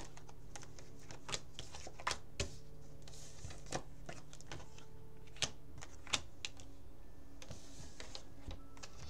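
Irregular light clicks and taps, a few seconds apart and at no steady rhythm, over a faint steady hum.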